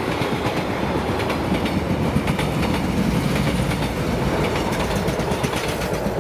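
Passenger coaches of a train running through at speed close by: a steady rumble of wheels on rail, with a dense, rapid clatter of clicks.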